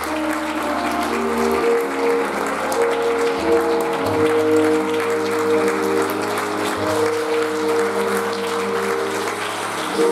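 Audience applauding over music of slow, held chords that change every second or two.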